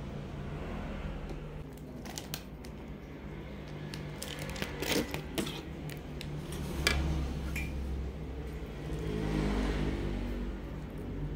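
A few scattered sharp clicks and taps, then a soft wet rustle about nine seconds in as sauced Samyang spicy instant noodles are lifted out of an aluminium pan. A steady low hum runs underneath.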